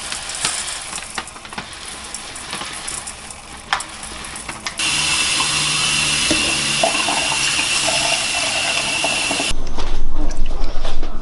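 Dry rice pouring from a bag into a stainless steel saucepan, a light hiss with small clicks. About five seconds in, a kitchen tap comes on and runs steadily, cutting off sharply about four seconds later, followed by louder low-pitched handling noise with knocks.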